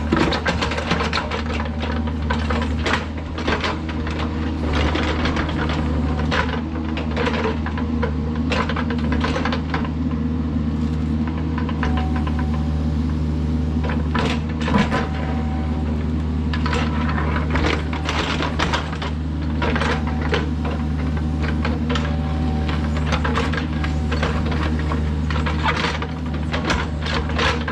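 Kubota mini excavator's diesel engine running steadily while it digs, with frequent clanks and scrapes of the bucket and dirt and rock throughout.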